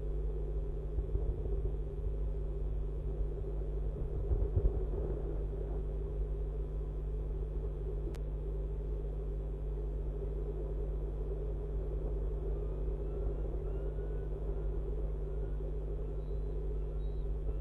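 Steady low rumble and electrical hum from an outdoor nest-camera microphone, with a single sharp click about eight seconds in and a few faint short high notes near the end.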